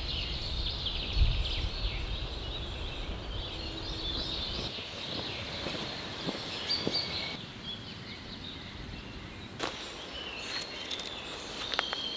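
Woodland songbirds singing in a steady chorus. A low rumble lies under the first few seconds and stops abruptly, and a few sharp clicks come in the second half.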